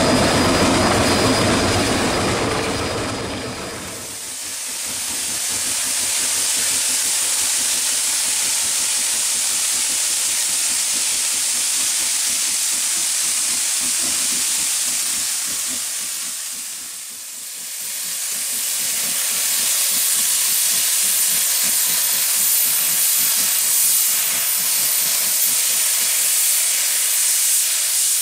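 Shay geared steam locomotive rumbling past close by for the first few seconds, then a steady hiss of escaping steam that dips briefly around the middle.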